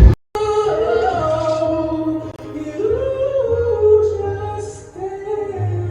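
Song with a sung vocal melody over a steady bass line, starting abruptly just after a brief silence.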